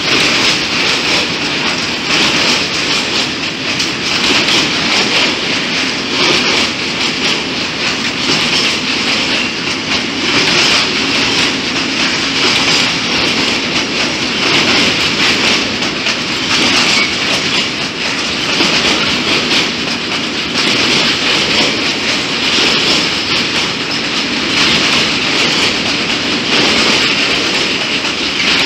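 Freight train of covered hopper wagons rolling steadily past, with continuous wheel-on-rail noise and a rhythmic clickety-clack of the wheels.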